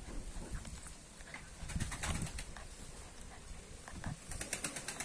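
Kangal puppy snuffling and grunting right at the microphone, its nose and fur brushing the phone. A quick run of sniffs comes near the end.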